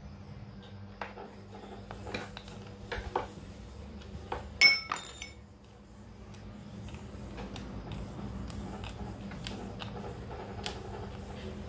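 Light clicks and taps of a metal hex wrench working an RC crawler's wheel nut, with one sharp, ringing metallic clink a little before halfway.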